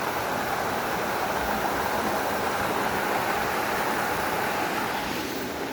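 Mountain stream water rushing over rocks, a steady even noise that eases slightly near the end.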